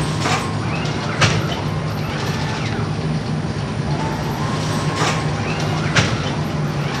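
Flatbread bakery machinery running: a steady mechanical hum with about four sharp metallic clacks, the loudest about a second in and near the end.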